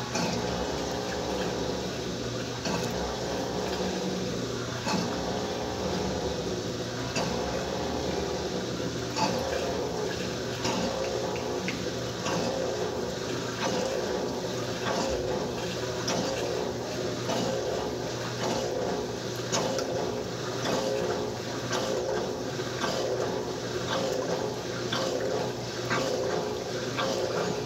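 Top-loading agitator washing machine running a cycle with a duvet inside: a steady motor hum over running, sloshing water, with light irregular clicks.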